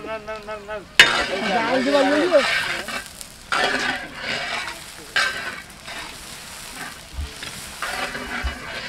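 Vegetable pieces frying in oil in a large cast-iron karahi, sizzling as they are stirred and scraped with a long-handled metal spatula. The sizzle starts suddenly about a second in, with fresh scraping strokes at about three and a half and five seconds.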